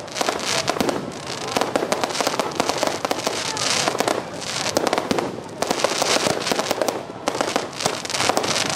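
Aerial fireworks bursting in quick succession: a dense, near-continuous run of bangs and crackling.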